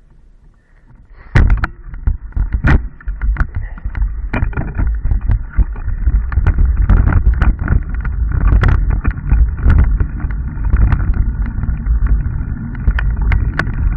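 Mountain bike riding fast down a dirt and gravel trail: a loud rumble of the bike and its mounted camera shaking, with frequent sharp knocks as the wheels hit rocks and bumps. It starts about a second and a half in.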